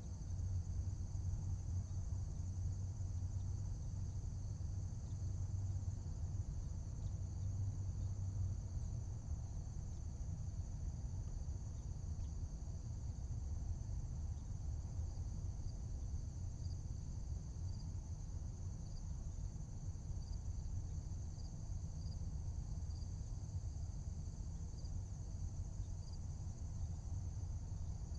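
Crickets trilling steadily in a high continuous band, with faint short chirps now and then from about halfway through, over a low steady rumble.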